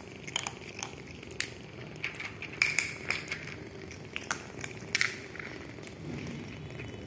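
Kittens eating dry kibble from a plastic tray: irregular crunching and sharp clicks of the pieces, the loudest a little under halfway through and again about two-thirds through.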